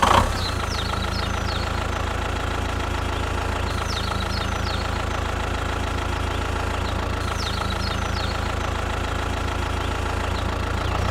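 An engine idling steadily with a low, even rumble that holds without change, and faint short high chirps coming back about three times.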